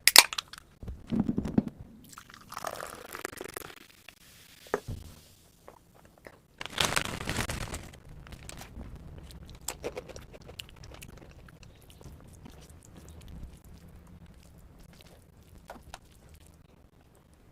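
Close-miked eating of crunchy food: a few loud crunchy bites, the loudest at the very start and around seven seconds in, each followed by quieter crackly chewing.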